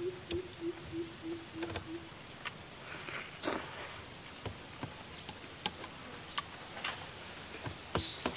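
Scattered soft clicks and taps of eating by hand from a metal tray, with chewing, over a steady high insect drone. In the first two seconds an animal calls a run of low, evenly spaced hoots, about four a second.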